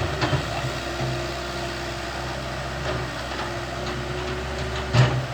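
Volvo excavator's diesel engine running steadily, with a few short knocks, the loudest just before the end.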